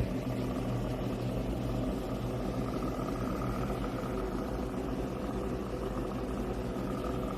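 A steady mechanical hum with a faint whine, with no key clicks.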